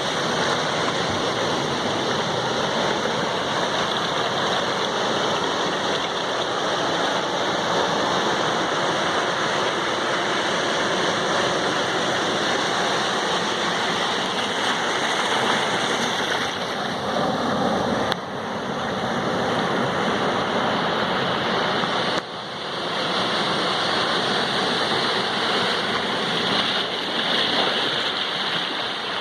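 Sea waves breaking on a shore, a steady loud rush of water without distinct individual swells, dipping briefly twice in the second half.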